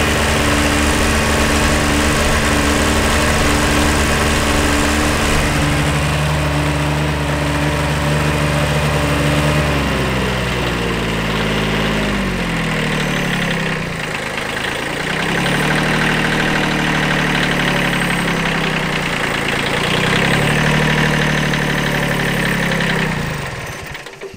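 Kubota B7100 tractor's 16 hp three-cylinder diesel running. Its revs drop about ten seconds in, are raised and let down twice, and the engine then stops near the end. The owner suspects number one cylinder is missing, going by white smoke of unburnt fuel and a cooler manifold on that cylinder.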